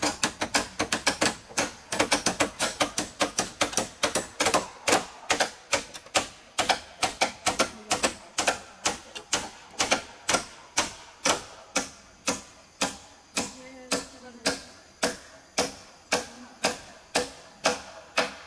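Hand tools striking wood over and over in building work, about three sharp blows a second, uneven and at times overlapping as if from more than one worker.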